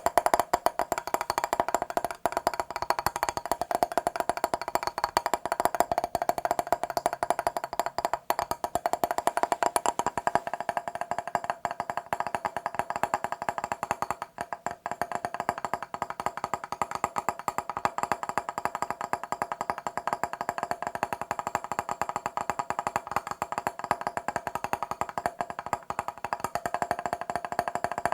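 Rapid, continuous tapping on a glass mirror: a dense run of quick taps with a ringing tone.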